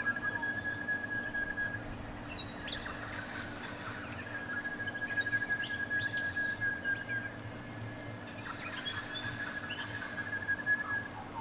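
Pre-dawn chorus of birds that the uploader takes to be Spiny-cheeked Honeyeaters. Three long, level whistled notes of about two to three seconds each are mixed with short rising and falling chirps, over a steady low hum.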